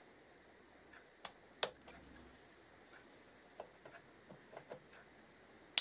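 Sharp metallic clicks of circlip pliers and a circlip being fitted onto a gearbox shaft end: two sharp clicks a little over a second in, then a few lighter ticks of metal on metal.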